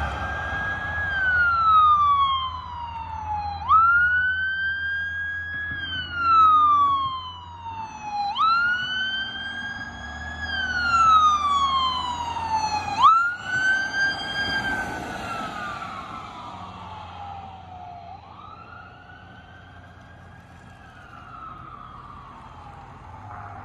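Ambulance siren on a slow wail, jumping up in pitch and then sliding down about every four and a half seconds, over engine and road noise. It grows louder as the ambulance approaches and is loudest as it passes, about 13 seconds in, then fades as it drives away.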